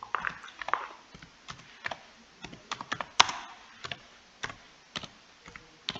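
Typing on a computer keyboard: irregular keystrokes in quick runs with short pauses, one louder strike about three seconds in.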